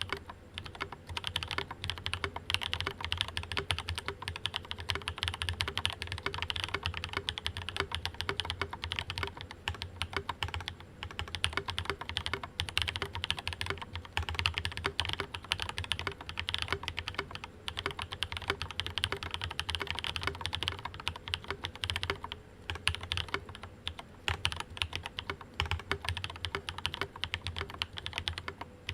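Steady fast typing on a gasket-mounted mechanical keyboard with lubed, filmed linear POM-housing switches and ABS Cherry-profile keycaps, a dense run of key clicks with a few short pauses.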